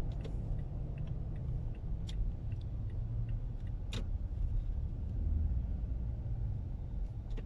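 Low, steady rumble of a 2017 Toyota Tacoma TRD Off-Road on the move, its 3.5-litre V6 and tyre noise heard from inside the cabin. A few brief clicks cut through, the loudest about four seconds in.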